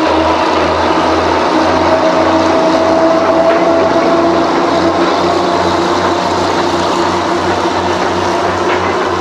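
Small diesel switcher locomotive running as it hauls freight cars across a trestle, a steady low engine throb pulsing two or three times a second under a steady hum.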